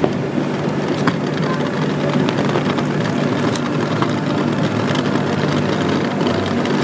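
Fireworks display: a few sharp pops of bursting shells, about one second and three and a half seconds in and again near the end, over a steady low rumble and faint crackling.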